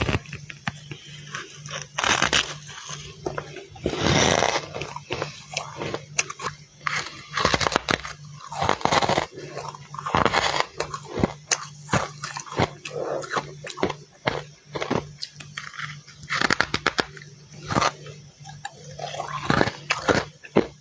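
Close-up crunching of freezer frost being bitten and chewed, a run of irregular crisp crunches and crackles, with a steady low hum underneath.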